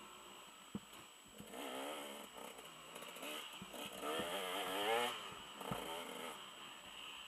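Dirt bike engine, muffled, revving up and down with the throttle as the bike rides a bumpy dirt trail, loudest about four to five seconds in, with a few short knocks from the bumps.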